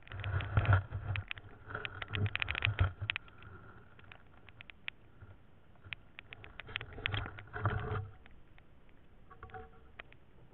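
Irregular clicks, ticks and soft knocks heard underwater through the camera as the spearfisher moves in a shallow ditch. They come in clusters, busiest in the first three seconds and again around seven to eight seconds in, with sparse ticks between.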